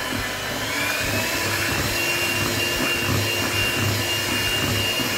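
Flama 300 W electric hand mixer running steadily, its beaters whisking cake batter in a bowl. The motor's whine rises a little in pitch about a second in, then holds.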